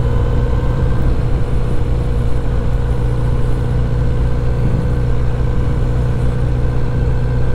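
Kawasaki Z900RS's inline-four engine running steadily through its 4-into-1 exhaust as the bike rolls along at low speed, an even, unchanging drone.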